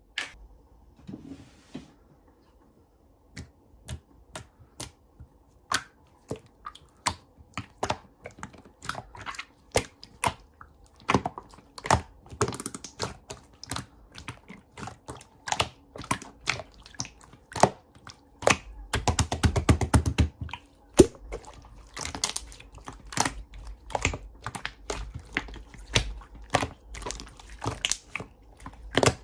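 Close-up sharp clicks and crackles, irregular at a few a second, with a dense, rapid run of crackling about two-thirds of the way through.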